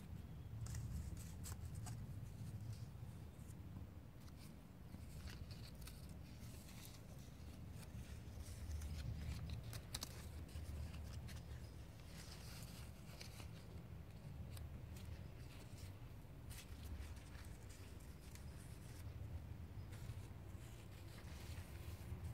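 Faint rustle and crackle of a potted cotton plant's leaves and dry, papery boll bracts handled by hand, in scattered crisp clicks over a low rumble.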